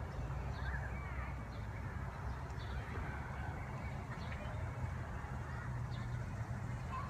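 Outdoor background: a steady low rumble with birds calling now and then, short high chirps every second or so and a few brief warbling calls about a second in.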